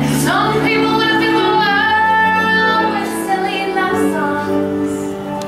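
A woman singing a long held note with vibrato over instrumental accompaniment.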